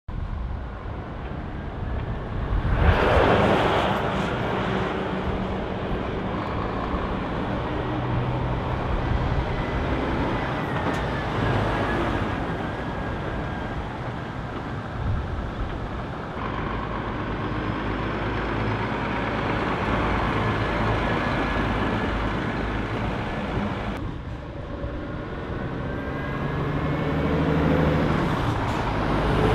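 Scania heavy trucks' diesel engines running as the lorries drive past, with a short loud air-brake hiss about three seconds in. Near the end a truck's engine rises in pitch and grows louder as it accelerates toward the listener.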